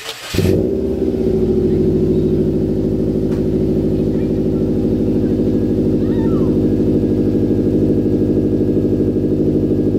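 Subaru WRX's turbocharged flat-four with its mufflers deleted, starting up about half a second in and settling into a loud, steady idle.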